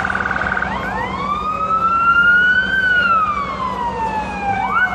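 An emergency vehicle siren changing pattern: a fast pulsing tone stops just under a second in, giving way to a slow wail that rises for about two seconds and falls for about two, then two quick upward sweeps near the end.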